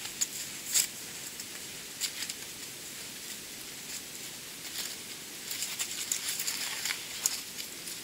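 Footsteps crunching in deep snow as a person walks away through the woods, heard as scattered crisp crunches and crackles over a steady hiss.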